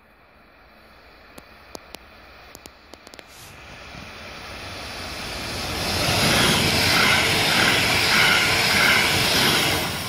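DB class 442 Talent 2 electric multiple unit approaching and passing at speed: a broad rush of wheels on rail and air that builds steadily and is loudest from about six seconds in. It starts to fade near the end.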